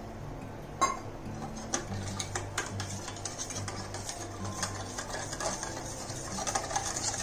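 Metal spoon stirring a thin curd-and-spice mixture in a steel bowl, clinking against its sides. There is a sharp clink about a second in, then irregular small clinks.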